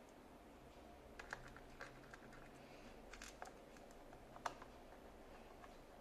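Scattered small clicks and ticks of a screwdriver working the screws of a plastic laptop bottom cover, the sharpest click about three-quarters of the way through, over a near-silent room.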